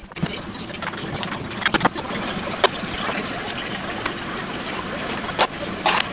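Metal ladle stirring and scooping thick beef-tendon curry in a stainless steel pot, with several sharp clinks of the ladle against the pot, over a steady hiss.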